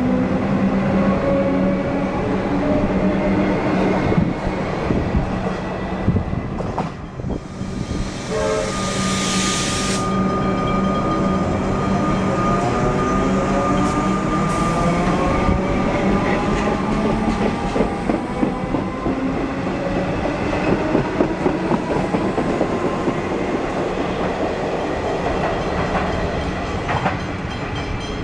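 Comeng electric suburban trains running along a station platform: wheels clattering on the rails and the electric motors whining, their pitch gliding as the train moves. A short, loud hiss comes about eight seconds in.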